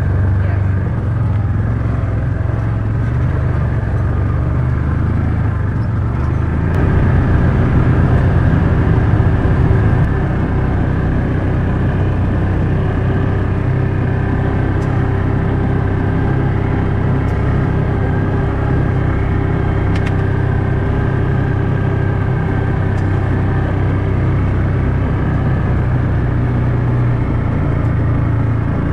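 Side-by-side UTV engine running steadily as the vehicle drives slowly over rocky ground, getting louder for about three seconds a quarter of the way in, with a few faint clicks.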